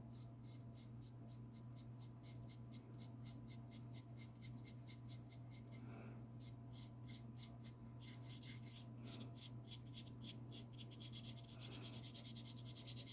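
Stiff bristle brush dabbing gouache onto watercolour paper in quick, even taps, about five a second, with a short pause about six seconds in; faint.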